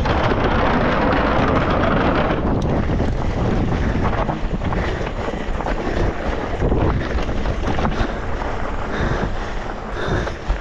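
Wind rushing over the microphone of an electric mountain bike being ridden fast down a trail, with tyre and trail noise and scattered knocks and rattles from the bike. The rush is strongest for the first couple of seconds, then eases a little while the knocks grow more frequent.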